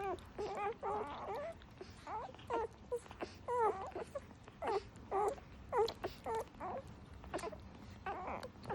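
Bernese Mountain Dog puppy crying and whining: a steady string of short, high, wavering cries, one or two a second.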